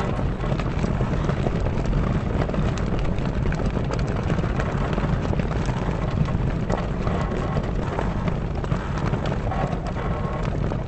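Sails flapping in the wind, a rapid fabric flutter over a steady low wind rumble, with the wooden mast creaking faintly now and then.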